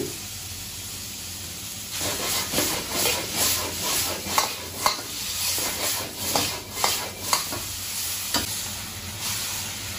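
Shredded zucchini sizzling in a steel wok being stir-fried to about seventy percent done. A steady sizzle at first, then from about two seconds in the metal wok ladle scrapes and knocks against the wok again and again as the shreds are stirred and tossed.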